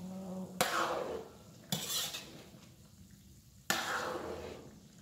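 A metal ladle stirring eggplant and tempe in a steaming wok, knocking against the pan three times. Each stroke is followed by a short sizzle that fades away.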